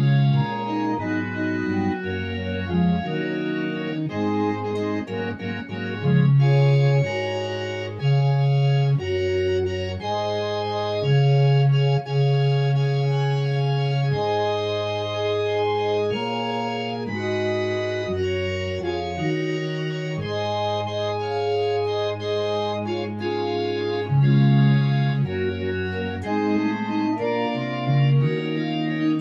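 Conn Strummer home organ played with its tibia and diapason voices: sustained chords that change about once a second, with a loud held bass note under them at times.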